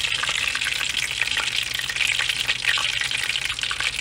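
Hot cooking oil sizzling and crackling steadily in a cast iron skillet, with bits of leftover batter frying in it.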